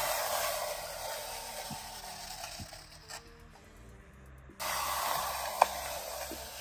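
A hand squeegee drawn across a wet steel bench top: two long hissing, scraping strokes with a quiet gap between them, the second starting suddenly about two-thirds of the way in. There is a single sharp tick during the second stroke.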